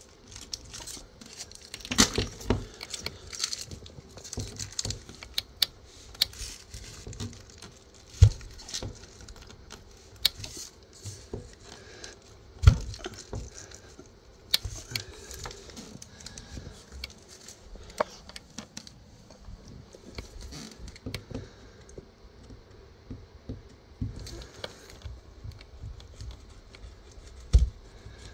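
Close handling noise: irregular rustling and light clicks, with a few louder knocks of something hard being handled.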